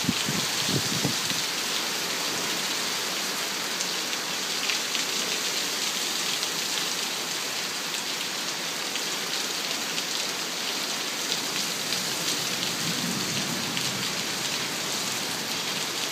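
Heavy thunderstorm rain pouring down in sheets: a steady, dense hiss.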